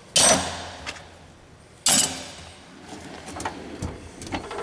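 Tools being put back into a steel toolbox locker: two sharp, loud clanks, one at the very start and another about two seconds in, each ringing briefly, then lighter clicks and rattles of handled metal parts.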